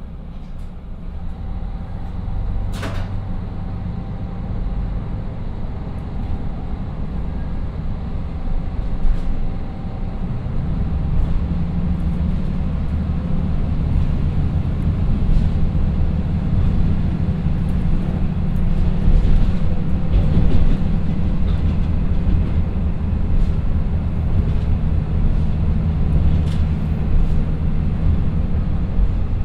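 A KiHa 54 diesel railcar pulling away and accelerating, heard from inside the car: its two Niigata DMF13HS diesel engines drone under power and grow louder from about ten seconds in as the car picks up speed. A sharp click comes about three seconds in, and fainter clicks follow as the car gathers speed.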